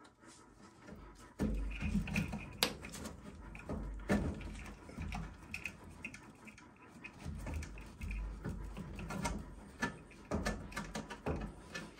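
Hands and a stubby screwdriver working inside a sheet-metal furnace cabinet, backing out a small sheet-metal screw from the transformer mount. Scattered clicks and taps, with rustling and rubbing against the wiring and the cabinet.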